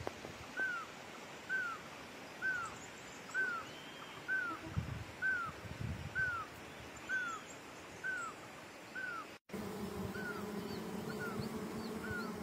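A bird repeats a short, arched whistled note about once a second. About nine seconds in the sound cuts to the steady buzz of Asian honeybees (Apis cerana) at the hive entrance, with the bird still calling now and then.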